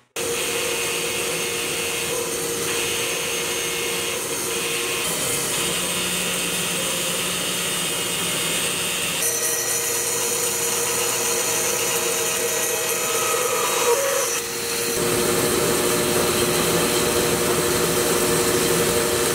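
Large cast-iron band saw running, its blade cutting through a thick block of yellow cedar along a curve. A steady machine hum under the cutting noise, which grows louder and changes about two-thirds of the way through.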